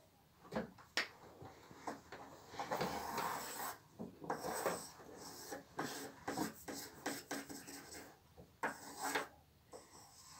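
Pencil drawing on a sheet of paper laid on a wooden tabletop: irregular scratchy strokes with short pauses between them.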